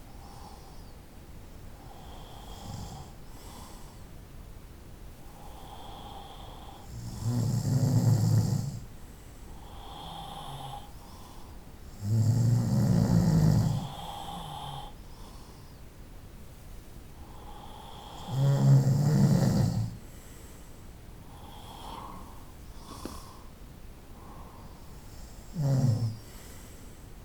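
A person snoring in sleep: three long, loud snores about every five to six seconds and a shorter one near the end, with softer breaths between them.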